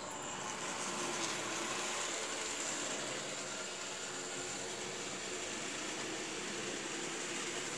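Model trains running on a model railway layout: a steady noise of small electric locomotives and wagons rolling over the track.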